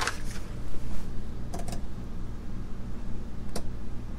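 A steady low hum with a few short, light clicks: one right at the start, a pair about a second and a half in, and one more about three and a half seconds in.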